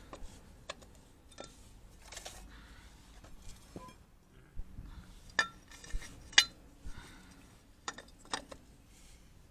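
Metal tools and parts clinking and tapping against each other in a series of separate light strikes at irregular times, the loudest about six seconds in.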